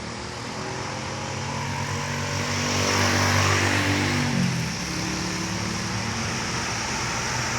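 Heavy diesel vehicle driving past close by: its engine note swells, then drops in pitch about four and a half seconds in as it goes by, and carries on steadily.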